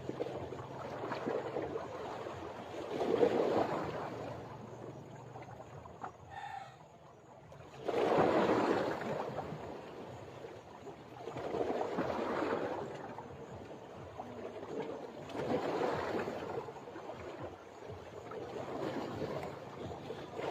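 Waves washing against a seawall embankment in slow swells about every four seconds, with a brief pitched call about six seconds in.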